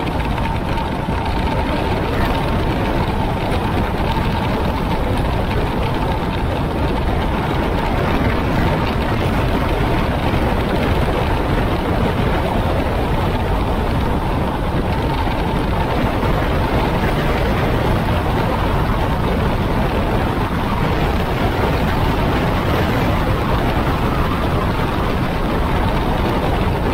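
Motorcycle cruising on a paved road: a steady, loud rush of wind and road noise with the engine running beneath it, heard from a microphone mounted on the bike.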